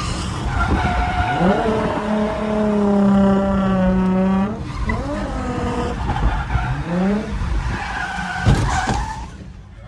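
Holden Calais's V6 revving hard and held high while the tyres squeal in a wet drift, then a sharp bang about eight and a half seconds in as the car hits the wall with its rear quarter.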